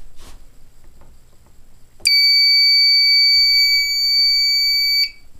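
A Fire-Lite fire alarm control panel's built-in piezo sounder giving one steady high-pitched beep about three seconds long. It starts about two seconds in and cuts off sharply.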